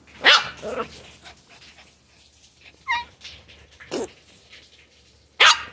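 Pet dogs giving four short, separate yelps with quiet gaps between them; one, near the middle, is a brief rising cry.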